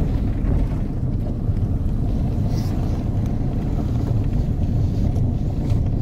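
Steady low rumble of engine and road noise, heard from inside a moving vehicle.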